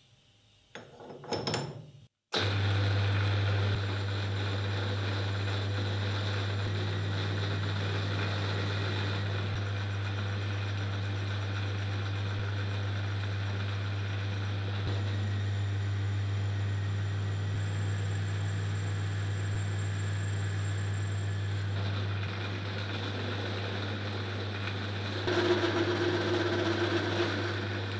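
An electric workshop machine running steadily: a strong low hum with a whirring hiss over it, switching on abruptly a couple of seconds in and getting a little louder and higher for a moment near the end.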